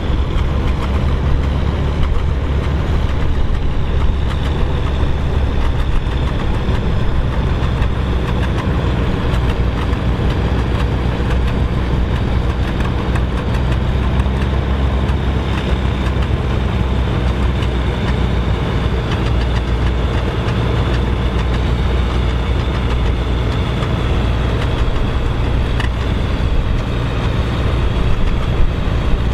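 Vintage farm tractor engines running as the tractors drive past one after another, a steady low drone that shifts in pitch as one gives way to the next.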